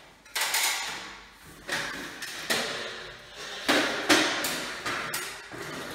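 Repeated knocks and scrapes of hard plastic being handled as a smoke alarm is worked onto its ceiling mounting plate: about six sharp knocks, each trailing off in a scraping rasp.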